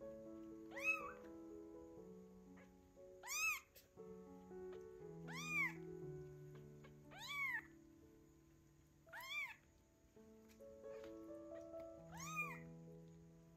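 A two-week-old kitten meowing loudly, six calls about two seconds apart, each rising and then falling in pitch: it is calling for its mother. Background music with held notes plays underneath.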